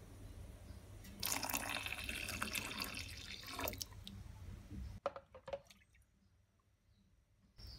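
Soy milk poured from a plastic container into a steel pot of agar-agar water, splashing for about two and a half seconds, followed by a few light clicks.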